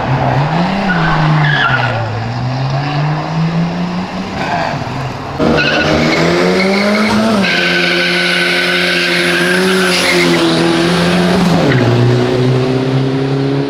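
Car engine revving hard as a car accelerates: the pitch rises and falls for the first few seconds, then, after a sudden jump in loudness about five seconds in, it is held at high revs for about four seconds before dropping back near the end.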